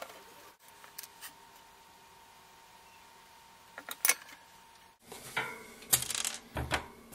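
Small metal tools and wire handled on a workbench during soldering work: a few isolated sharp clicks and taps, then a busier cluster of clicks and clatter near the end.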